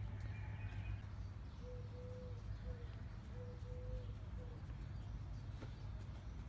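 A dove cooing in two three-note phrases, each a short note, a longer one, then a short one.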